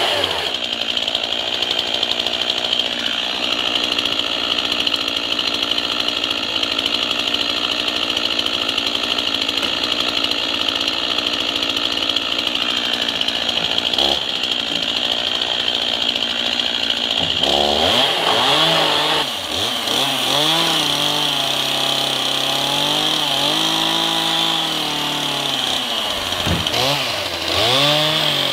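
Two-stroke chainsaw running steadily, then, about two-thirds of the way in, revving up and down repeatedly.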